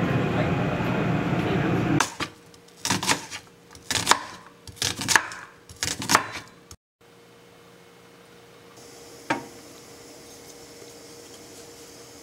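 Subway train running, heard from inside the carriage, then a kitchen knife slicing through onions, about ten cuts at roughly two a second. One light knock follows a few seconds later.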